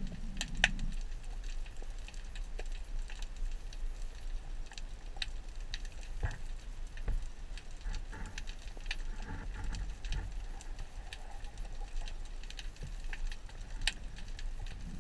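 Underwater ambience picked up by a camera below the surface: a steady crackle of scattered sharp clicks over a low rumble, with one louder click a little under a second in.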